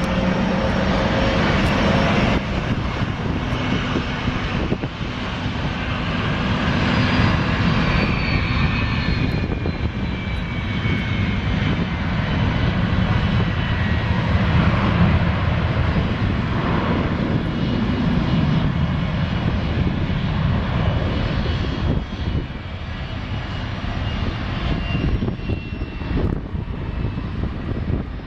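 Boeing 717's twin Rolls-Royce BR715 turbofans at takeoff thrust: a loud, steady jet rumble with a high engine whine that falls in pitch as the airliner passes, in the middle of the stretch.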